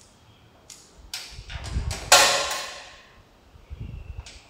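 Snack and drink vending machine being operated. A few sharp clicks are followed by a brief low motor hum, then about two seconds in a loud clatter rings out and dies away, a product dropping into the delivery bin. A second low hum comes near the end.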